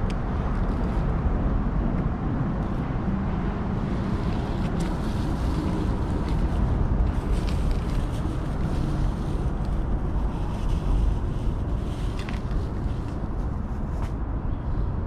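Steady low outdoor rumble of background noise, with a few faint clicks.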